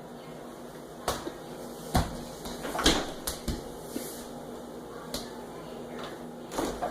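Refrigerator door and the things in it knocking and clattering as they are handled, with about half a dozen irregular knocks, the loudest about three seconds in.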